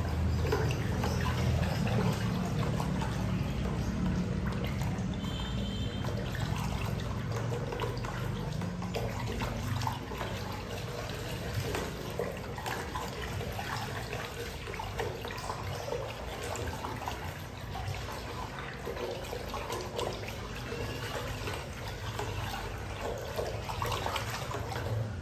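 Water diluted with concrete neutralizer being stirred by hand in a plastic bucket: continuous sloshing and swishing of the liquid, over a low background rumble.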